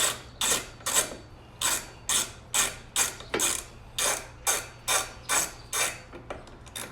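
Hand socket ratchet wrench clicking in repeated short strokes, about two a second, backing off a 12 mm nut.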